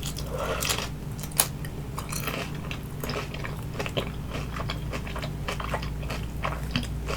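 Close-miked chewing of crispy oven-baked vegetable spring rolls: a run of crunches and small crackles, with one sharper crunch about a second and a half in, over a low steady hum.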